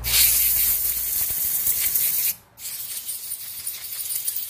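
Compressed air from a blow gun hissing through a chainsaw carburetor, blowing out its passages in two blasts with a brief break a little over two seconds in.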